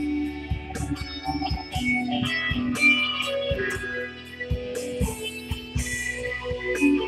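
Electric guitar playing a melodic lead line of changing single notes and short runs, over a steady bass and regular percussive hits from an accompanying track.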